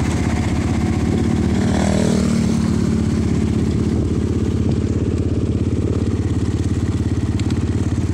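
A small motorcycle engine running steadily as the bike rides along, heard from on board.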